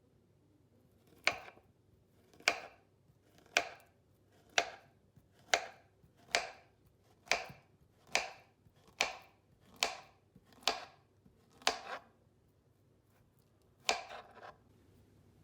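Knife chopping on a cutting board with slow, even single strokes, about one a second, a dozen in a row and then one more after a short pause.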